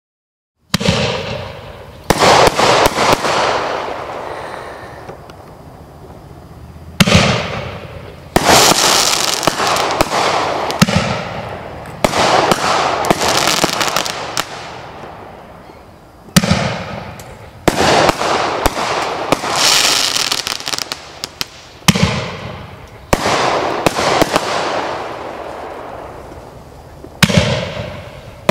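A Quad Power 500-gram finale tube firing, starting suddenly about a second in. It fires about a dozen loud aerial shots, each a sharp bang followed by a long, fading crackle.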